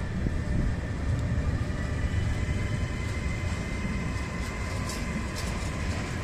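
Freight train of intermodal pocket wagons carrying semi-trailers rolling past close by: a steady low rumble of wheels on the rails, with a faint high steady tone running through it.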